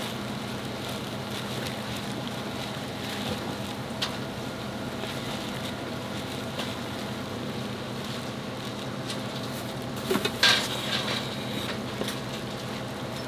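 Gloved hands toss and mix cooked rice in a large stainless steel bowl, over a steady kitchen hum. There is a sharp metal clink about four seconds in and a louder clatter of metal against the steel bowl about ten seconds in.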